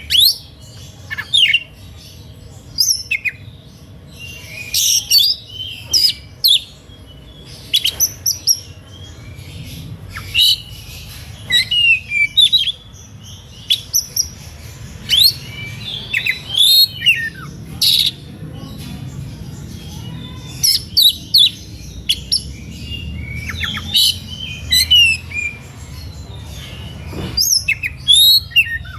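Oriental magpie-robin (kacer) singing in an agitated, competitive mode: quick phrases of varied whistles and chirps in repeated bursts with short pauses, over a faint low hum. This heated song is the kind used to goad other magpie-robins into singing back.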